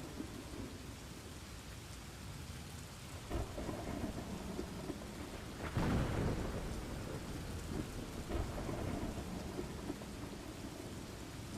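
Steady rain falling with rolling thunder; the thunder swells several times, loudest about six seconds in.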